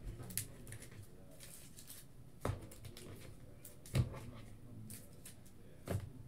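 Trading cards in plastic holders being handled and set down on a tabletop: a few light knocks and clicks about two seconds apart, the sharpest about four seconds in.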